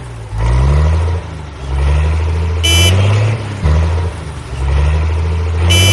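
Electronic engine-revving sound effect of a toy vehicle: a looped low hum that rises in pitch about once a second, with a short high bright beep about three seconds in and again near the end.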